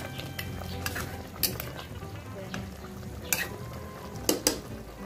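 Metal spoon stirring pork adobo with quail eggs in an enamel pot over a steady bubbling of the simmering sauce. The spoon clinks sharply against the pot four times, the last two close together near the end.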